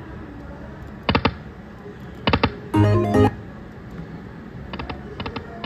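Tiki Fire video slot machine: short clusters of sharp electronic ticks as the reels click to a stop, about a second in and again about halfway, then a short loud jingle with steady tones as a spin starts, and quieter reel-stop ticks near the end.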